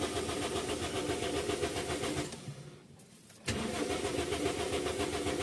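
Toyota Vios engine cranking on its starter without firing, in two long cranks with a pause of about a second between them. This is a crank-no-start, which the mechanic links to crankshaft and camshaft sensor trouble codes.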